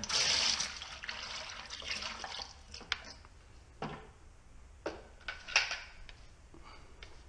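Thin, watery Gardz primer-sealer pouring from its can into a plastic bucket for about two and a half seconds. A few short knocks and clinks follow as the can and bucket are handled.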